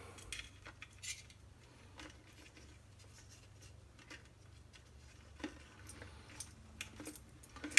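Scattered light clicks and taps of small parts being handled while the power cord's strain-relief clamp is fitted to a garbage disposal, over a faint low hum.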